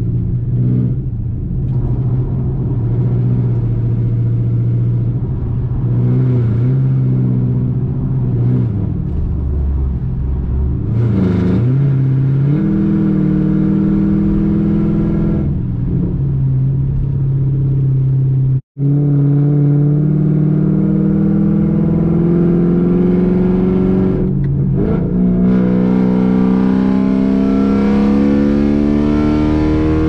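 Chevrolet Camaro SS's 6.2-litre V8 with straight headers, heard from inside the cabin while driving. The engine runs at steady cruising revs, steps up to a higher steady note about twelve seconds in, and over the last few seconds climbs steadily in pitch as the car accelerates; the sound cuts out for an instant about two-thirds through.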